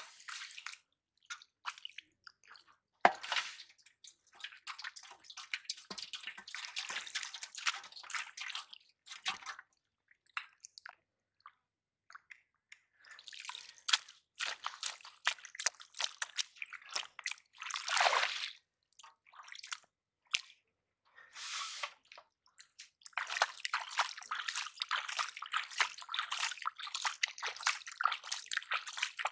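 Bare hands digging in wet mud and shallow muddy water: squelching, sloshing and dripping in irregular bursts with short quiet pauses between them.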